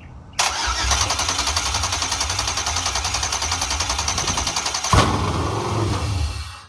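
GM LS2 6.0-litre V8 on an engine stand firing up about half a second in and running with a fast, chopping idle, with one sharp bang about five seconds in, then shutting off near the end.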